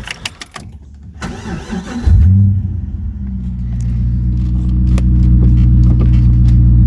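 Car engine cranked by the starter and catching about two seconds in with a brief rev, then settling into a steady low idle.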